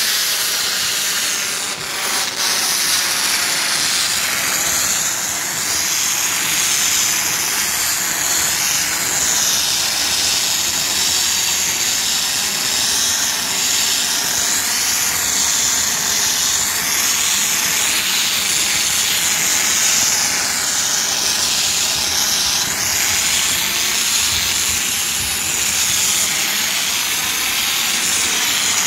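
Car-wash foaming machine (a stainless-steel foam box) spraying a jet of foam from its nozzle onto a corrugated metal wall: a steady, loud hiss.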